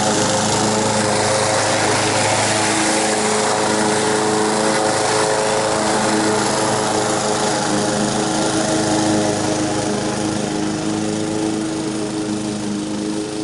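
Honda HR194 push mower's single-cylinder four-stroke engine running steadily while cutting grass, fading a little near the end as the mower moves away.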